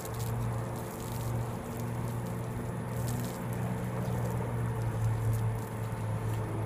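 Water from a garden hose spraying onto a car's body and windshield: a steady splashing patter, over a steady low hum.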